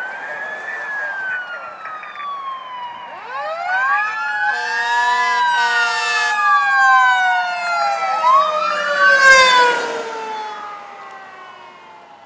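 Fire truck sirens wailing, several siren tones overlapping as they rise and fall in pitch. A steady horn sounds in short blasts about four to six seconds in. The sound is loudest a little past the middle as the truck passes, then fades.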